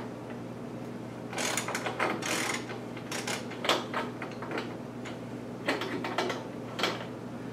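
A 15/16 wrench working a dishwasher leveling leg loose from its shipping pallet: metal clicking and scraping in three short spells.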